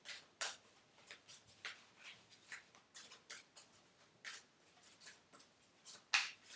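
A deck of oracle cards being shuffled and handled: an irregular string of light card flicks and taps, two or three a second, with a sharper snap about six seconds in.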